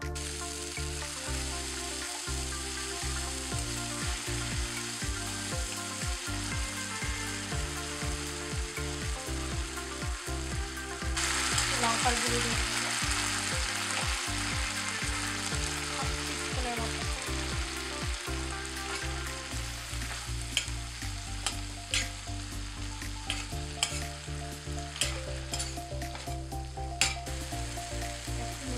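Tempering spices frying in hot oil and ghee, sizzling steadily as turmeric and ginger paste are stirred in. The sizzle grows louder about eleven seconds in. In the last several seconds a metal spatula scrapes and clicks against the pan.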